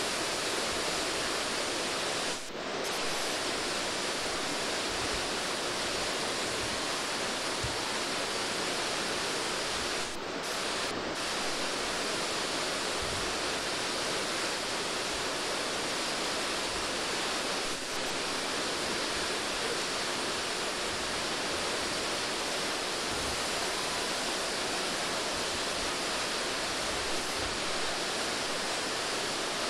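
Steady, even rushing noise of wind and sea on a ship's deck, with brief dips about 2.5 seconds in, twice around 10 to 11 seconds, and near 18 seconds.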